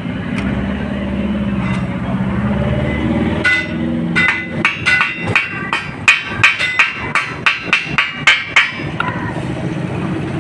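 Hammer striking metal in a quick run of about twenty ringing blows, roughly three or four a second, starting a few seconds in and stopping before the end. A steady low rumble runs underneath.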